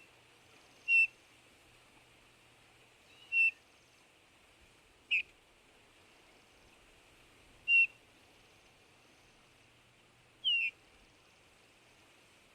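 Bullfinch (Pyrrhula) giving its soft piping whistle call: a single short note about every two to three seconds, five times, a couple of them sliding down in pitch.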